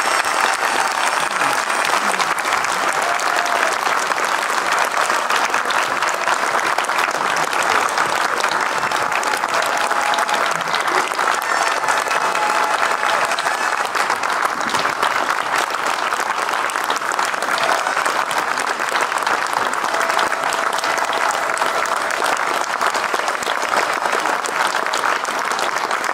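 Long, steady applause from a crowd, dense clapping that holds at an even level throughout.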